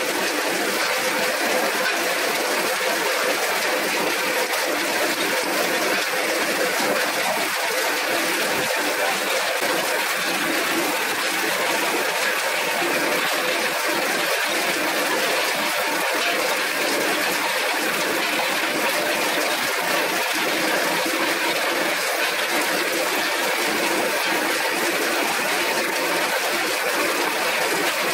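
Old printing press running with a steady, even mechanical rush.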